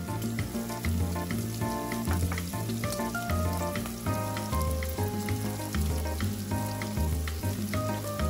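Shrimp sizzling as they fry in butter and oil, a steady crackle, under background music with a repeating bass line.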